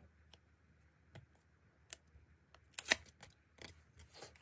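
Paper being handled up close: a series of short, sharp crinkles and taps as small paper cards are moved and a folded paper slip is opened, the loudest crinkle about three seconds in.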